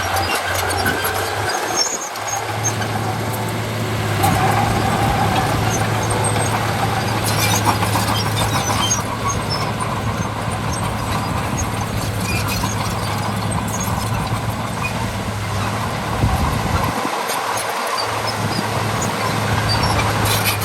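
Bulldozer's diesel engine running under load, with squealing and clanking from its steel tracks as it pushes soil.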